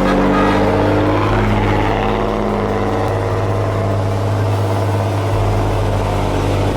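Volvo NL12 logging truck's diesel engine pulling hard under a full load of logs on a steep climb, running at a steady pitch.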